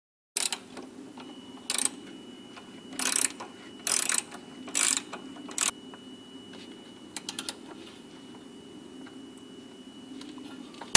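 Ratchet wrench clicking in short bursts, about one stroke a second, as a 12 mm bolt is tightened down. The strokes stop about six seconds in, followed by a few lighter ticks.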